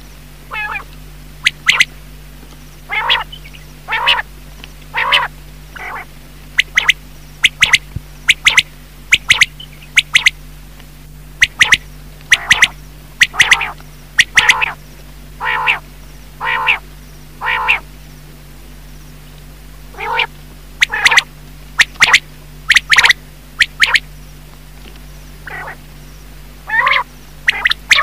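Quail (batair) calls from a decoy recording used to lure quail. Very short, sharp notes alternate with longer notes in irregular bunches, over a steady low hum.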